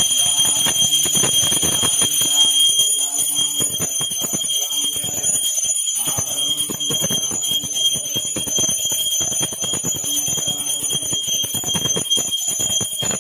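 Temple bells ringing rapidly and continuously: a dense run of strikes under a steady high ringing tone.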